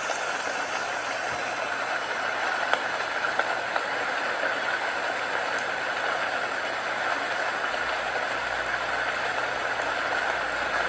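A steady, even rushing noise with a few faint clicks.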